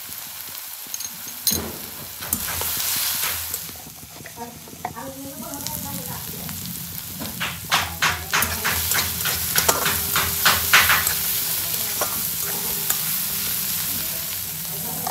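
Food frying and sizzling in hot oil in a pan while being stirred, with a quick run of spatula strokes scraping and knocking against the pan about halfway through.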